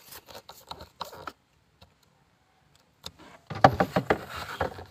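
A screwdriver and the plastic interior trim of a Suzuki Alto 800 being handled and fastened: a run of light clicks and taps in the first second or so, then after a pause a louder burst of rattling clatter about three and a half seconds in.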